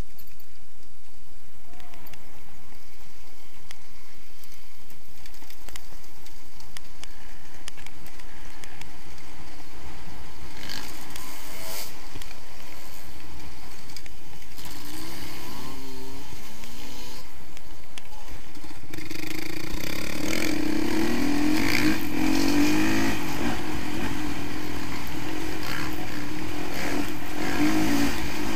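2017 Honda CRF450R's single-cylinder four-stroke engine running under way on a dirt trail, heard from the bike itself with wind rumble on the microphone. Its pitch wavers up and down with the throttle, the engine standing out most plainly from about two-thirds in.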